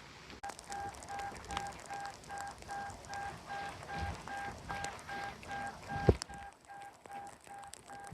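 Electronic beeping, a single steady-pitched tone repeating about two to three times a second, which starts about half a second in and keeps going over a constant noisy background. A loud thump about six seconds in.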